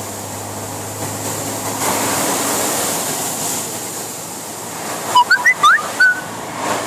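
Truck tyres hissing through floodwater over the road, heard from inside the cab along with the engine's low hum. About five seconds in comes a quick run of short, loud, high chirping squeaks.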